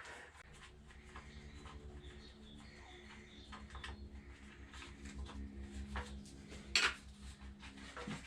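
Hand tools working on metal fasteners, faint clinks and scraping, with one sharper clink near seven seconds in, as bolts on a VW T3's lower timing belt cover are loosened. A steady low hum runs underneath.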